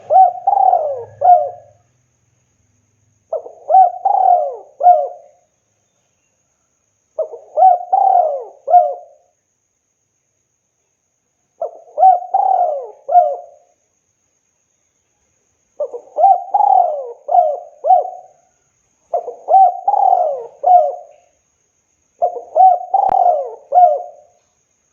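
Spotted dove (tekukur) cooing: seven repeated phrases of a few low gliding notes each, a pause of a second or two between phrases.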